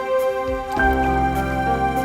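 Background music: soft, new-age style with sustained tones, changing chord about a second in.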